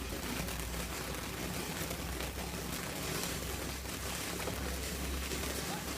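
Steady outdoor background: an even hiss with a constant low rumble, with no distinct firework bangs.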